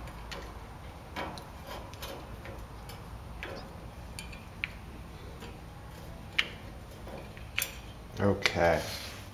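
Scattered light metallic clicks and clinks of an Allen wrench working a screw on a steel firebox door frame while the door glass is lined up and the screw tightened, about seven separate ticks, two sharper ones near the end.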